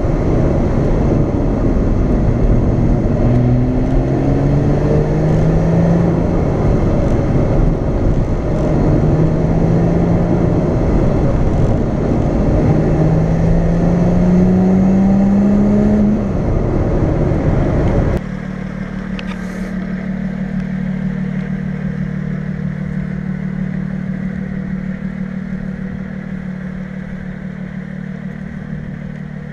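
Lotus Exige S V6's supercharged 3.5-litre V6 heard from inside the cabin, accelerating with its pitch climbing and falling back at each of several upshifts, over loud road and wind noise. About eighteen seconds in it cuts to the engine idling steadily, heard from outside the car and growing slowly fainter.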